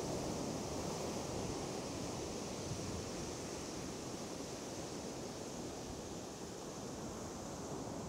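Steady wash of sea surf breaking on the shore, with wind rumbling on the microphone.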